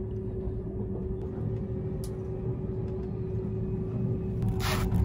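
Steady low rumble and hum inside the passenger cabin of a Seibu 001 series Laview limited express train, with a brief hiss about four and a half seconds in.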